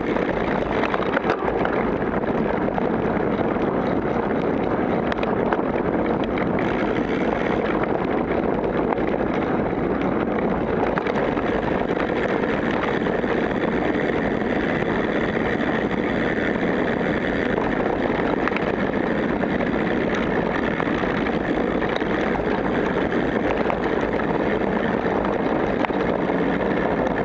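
Steady rushing wind noise on the camera microphone, mixed with the rumble and rattle of mountain-bike tyres rolling fast down a dirt singletrack. There is no engine note.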